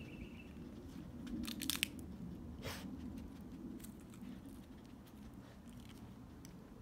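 A dog sniffing at the ground: a cluster of short clicks about a second and a half in, then a brief rush of noise, over a steady low hum.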